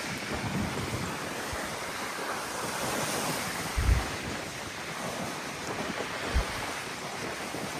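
Sea waves breaking and surging in a steady rush of surf, with strong gusting wind on the microphone. Two brief low thumps, about four and six and a half seconds in.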